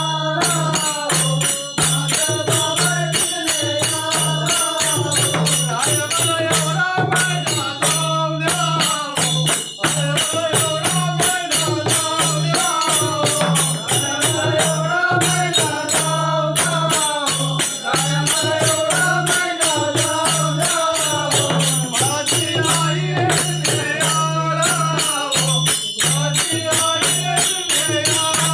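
Konkan khele folk music: men singing together to a two-headed barrel drum, with a fast, steady jingle of hand cymbals.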